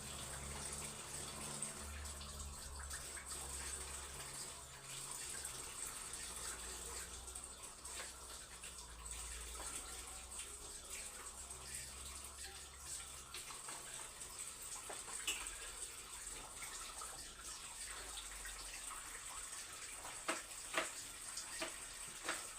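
Kitchen tap running steadily into a sink as things are washed, with a few light clicks and knocks near the end.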